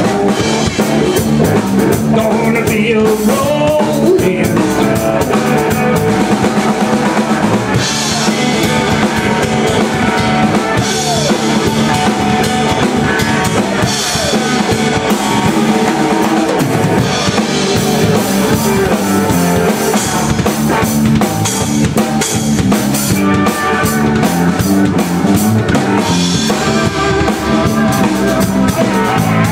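Live blues-rock band playing an instrumental passage: drum kit with bass drum and snare driving a steady beat under electric guitar and electric bass.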